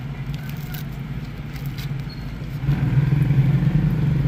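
Steady low hum of a vehicle engine running, heard from inside a car, getting louder about two and a half seconds in.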